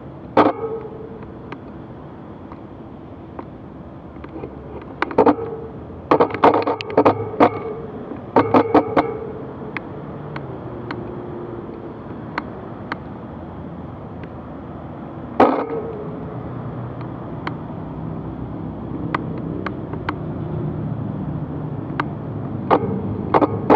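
Road traffic at an intersection: cars driving through the crossing, their engine and tyre noise rising toward the end. Scattered sharp clicks and knocks, in clusters about five to nine seconds in and again about fifteen seconds in.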